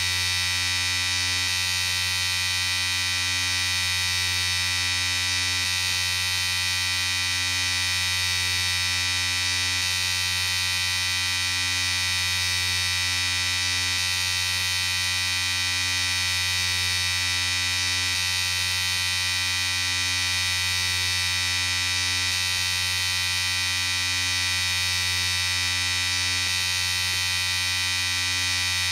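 Electric shaver running continuously with a steady, even buzz, its motor hum carrying a bright high whine.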